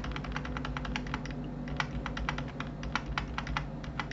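Computer keyboard keys clicking rapidly as Ctrl+Z is pressed over and over, about five undo presses a second, with a short break about a second and a half in.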